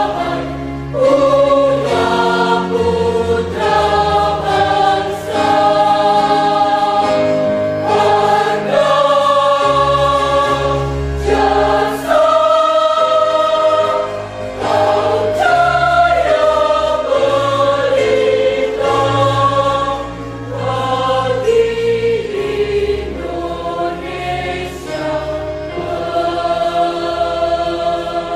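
A choir singing a slow song in long held notes over a low accompaniment.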